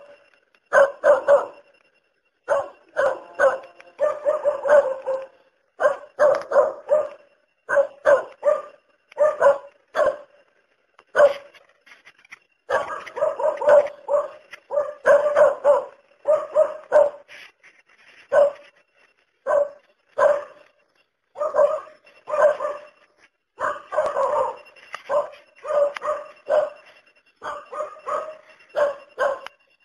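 A dog barking over and over, in quick runs of several sharp barks with short pauses between them.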